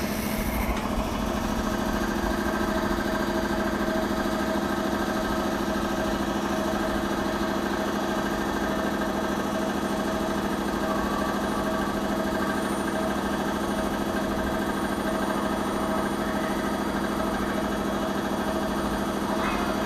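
Steady mechanical hum from a train standing at the station, its auxiliary equipment running. It holds several fixed tones without change.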